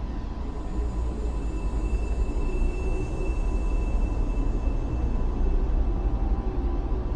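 A steady low rumbling drone, with faint high steady tones held above it.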